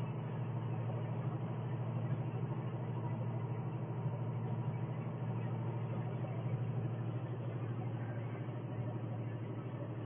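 Vehicle engine running steadily under load while climbing a mountain grade, heard from inside the cab as a constant low drone.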